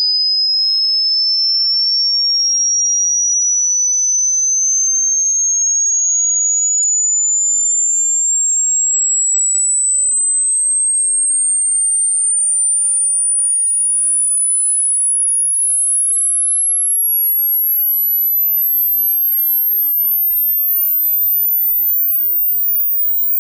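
Electronic high-pitched sine tone played as a dog-whistle sound effect for stopping dogs barking, one pure tone climbing slowly and steadily in pitch in small steps to a very high pitch.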